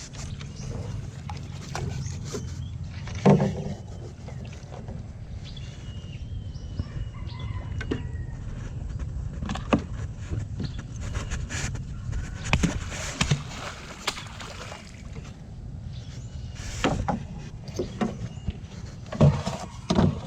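Scattered knocks and thumps as a gill net and fish are hauled into a small boat, over a steady low rumble. The sharpest knock comes about three seconds in, and several more come near the end.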